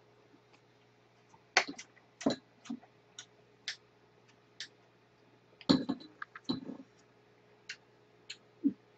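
Scattered clicks and clinks of metal utensils, tongs, kitchen scissors and a ladle, knocking against bowls and a metal stew pot, with a busier cluster about six seconds in.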